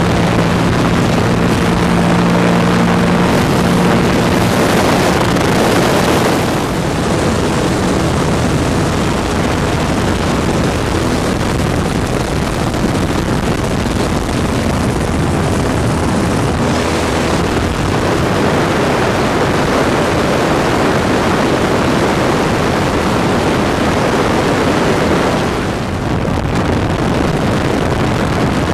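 Ultralight trike's propeller engine running steadily in flight, mixed with heavy wind buffeting the microphone. The engine's hum stands out most in the first few seconds; after that the rushing wind dominates.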